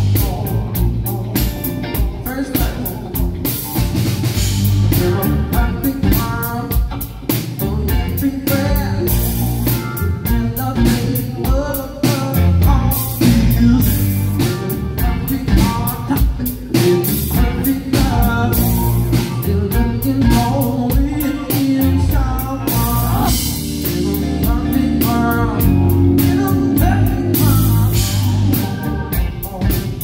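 Live band playing a song: a male lead singer over electric guitars, keyboard and a drum kit keeping a steady beat.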